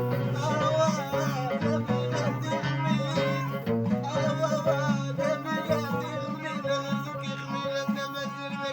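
Folk music played on string instruments: a plucked instrument repeats a short riff at about four notes a second while a wavering melody line runs above it.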